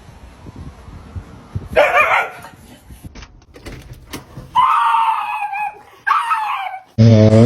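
A dog crying out in short vocal bursts: a brief cry about two seconds in, then two longer wavering cries around the five- and six-second marks. A loud, low-pitched sound starts abruptly near the end.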